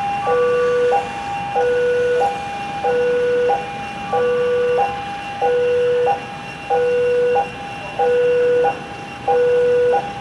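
Electronic railway level-crossing alarm sounding its two-tone warning: a higher tone and a lower tone alternate evenly, each held a little over half a second, about seven high-low pairs in all. It warns that a train is approaching the crossing.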